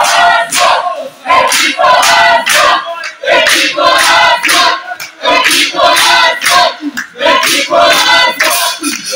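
A group of voices singing and shouting together in short loud phrases, with brief gaps between them.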